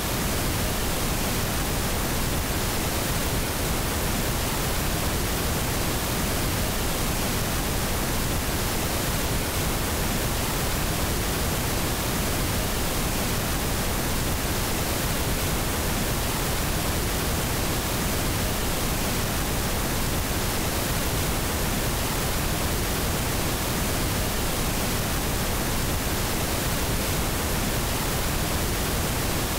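FM radio static: a steady, unchanging hiss where the rock music has suddenly cut off, the sound of the 104.1 frequency with the station's signal gone off the air.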